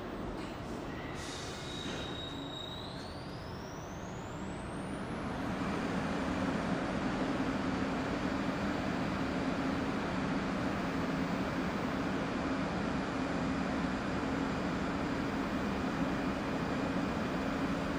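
R62A subway train standing at the platform with its doors open. A high whine rises steadily in pitch over the first few seconds, then gives way to a steady low hum from the train's onboard equipment.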